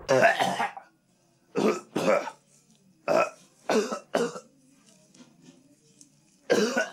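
A man retching: seven short, strained throaty heaves with pauses between them, the last one near the end.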